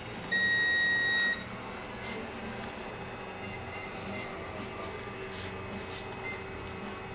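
SAM4S SPS-2000 touch-screen cash register beeping as its screen keys are pressed: one steady beep of about a second near the start, then about five short, higher key beeps.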